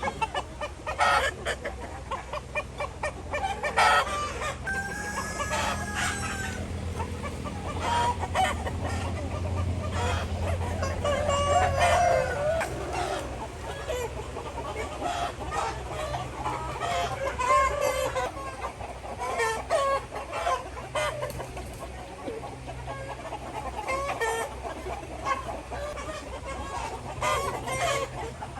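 A flock of farm chickens clucking and squawking in many short overlapping calls, with a rooster crowing among them. Sharp knocks and scuffles come at intervals, and a low hum runs through the first half.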